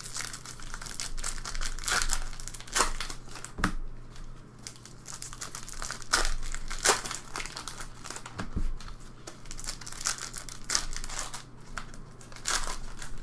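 Hockey trading cards being flipped through quickly by hand: irregular rustles, slaps and crinkles of card stock and packaging.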